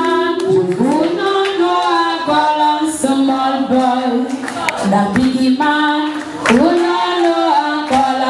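A voice singing drawn-out, wailing phrases, about five of them, each opening with an upward swoop in pitch.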